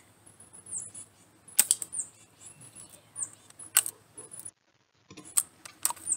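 BB gun shooting: a series of sharp metallic snaps, several coming in quick pairs, some followed by a short falling ring.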